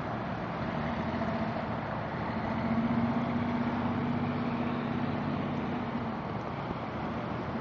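A boat's engine running steadily at one pitch under a rush of water and wind noise; the hum grows a little louder about three seconds in.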